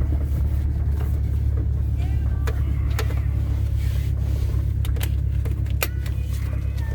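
A car's exhaust drone, low and steady, from a muffler the owner says is now really loud, with scattered clicks and short squeaks from the car's cabin over it.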